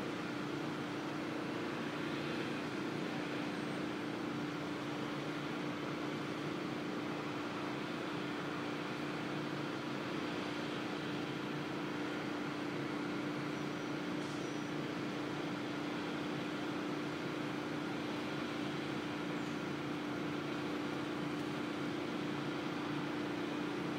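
Power washer running steadily: a constant machine drone, with a steady hum under an even hiss.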